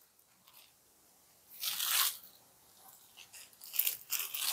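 Banarasi khadi georgette saree with gold weaving rustling as it is unfolded and handled: one brief rustle about one and a half seconds in, then several short rustles near the end.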